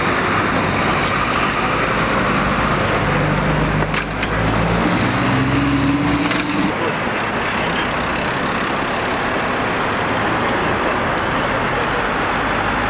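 Road traffic noise: a steady rush of passing vehicles, with one vehicle's engine rising slightly in pitch as it goes by about three to six seconds in. A couple of brief clicks come near the middle.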